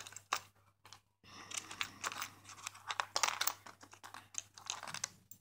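Cardboard box and packaging handled close by: irregular crinkling, rustling and small clicks.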